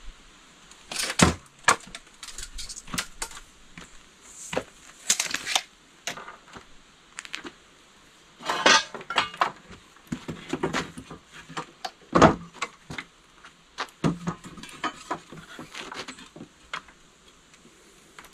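Wooden crate boards knocking, clattering and scraping as they are handled during crate repair, in irregular bursts with short pauses between.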